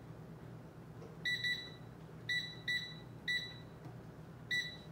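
Touch control panel of a digital air fryer oven beeping as its buttons are pressed to set the cooking time: six short high beeps, two in quick succession about a second in, over a steady low hum.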